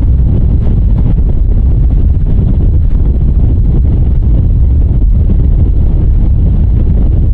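Strong wind buffeting the microphone: a loud, steady low rumble with no clear tones.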